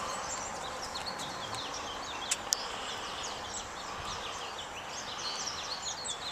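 Several small birds chirping, with many quick short chirps over a steady outdoor hiss. Two sharp clicks come close together about two and a half seconds in.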